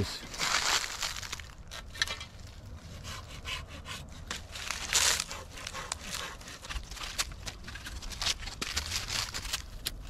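Dry leaves and twigs crackling and rustling in irregular bursts, with scattered sharp snaps.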